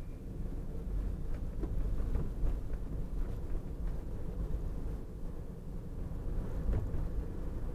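Steady low rumble of a car driving in traffic, heard from inside the cabin: engine and road noise picked up by a dashcam's microphone.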